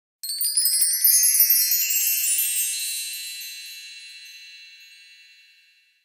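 A bright, high chime sound effect. A quick cascade of tinkling tones, some climbing in pitch, rings out and fades away over about five seconds.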